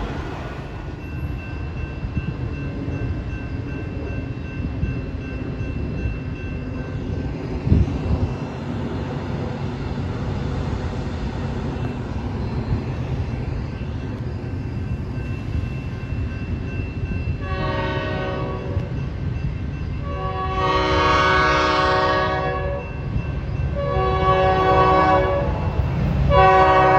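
Metra locomotive's air horn sounding four chord blasts over the steady rumble of a passing train, starting about two-thirds of the way in; the second blast is the longest and loudest, and the last runs on past the end.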